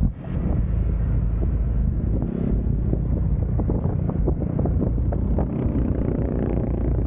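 Wind buffeting the microphone while riding a Yamaha XMAX 300 maxi-scooter at speed, over a steady low drone of engine and road noise.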